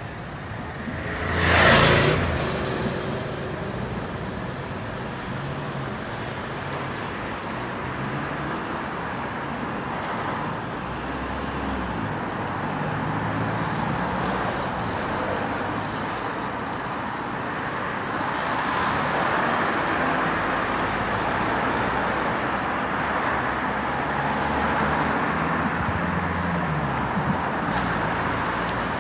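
Steady road traffic going by, with one vehicle passing close and loud about two seconds in.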